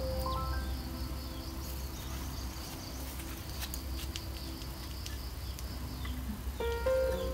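Insects chirping steadily at a high pitch, with soft background music whose notes grow louder near the end.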